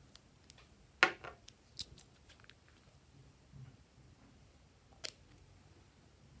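A sharp click about a second in, followed by a few lighter taps and one more click near the end: glass nail polish bottles and their brush caps knocking and clicking as they are handled.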